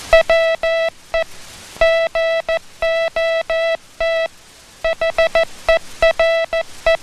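A Morse code phrase sent as a keyed tone: one steady buzzy pitch switched on and off in short dits and long dahs. Tight gaps fall between elements, slightly longer ones between letters, and two longer pauses split it into words, showing element, letter and word spacing.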